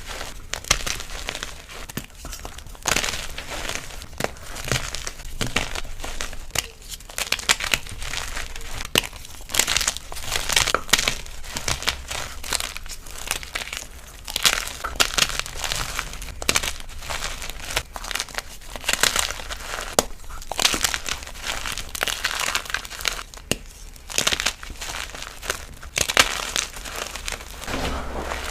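Blocks of gym chalk being crushed and crumbled, a dense, irregular crunching and crackling of powdery chalk breaking apart.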